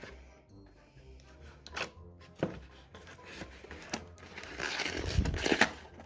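Packaging being handled and unwrapped: scattered light clicks and crinkles, with a louder stretch of rustling about five seconds in. Faint background music runs underneath.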